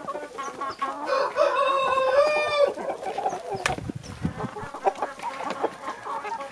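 A flock of Kuroiler chickens clucking, with a rooster crowing once about a second in, a long call of about a second and a half. A single sharp knock comes a little past the middle.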